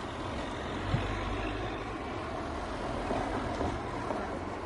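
Street traffic: a heavy vehicle passing, its engine a low rumble that swells about a second in, with one brief knock at that moment.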